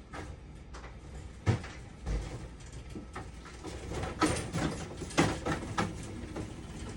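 Irregular clicks and knocks of hands handling a dialysis machine's casing and parts, the loudest about a second and a half in and again around five seconds, over a low steady hum.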